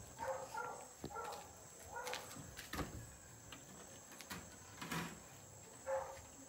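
A makeshift wooden plank door being eased open, with a few light knocks and creaks, under faint murmured voices.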